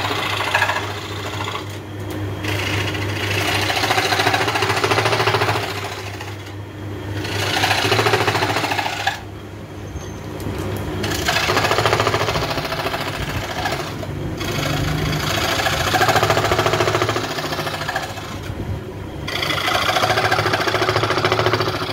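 A small hand hammer tapping rapidly on wood in runs of a few seconds with short pauses, fastening pieces of a toothed wooden clock case. A steady low hum runs beneath.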